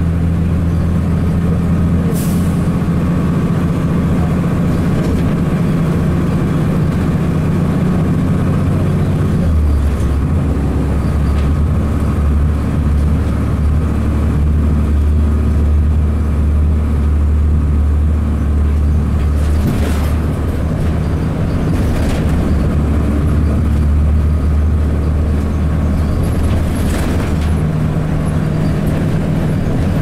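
2002 Blue Bird CS bus's Cummins ISC diesel engine running under way, heard from inside the cabin, its low hum stepping to a different pitch a few times as the Allison automatic transmission shifts. A few short hisses of air break through, about two seconds in and again near the end.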